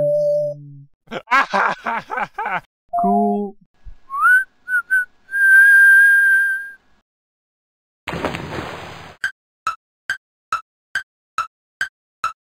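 Cartoon sound effects: a short warbling, voice-like jabber, then a whistle that glides up and is held on one high note. Near the end there is a brief hiss followed by a run of sharp clicks, about two a second.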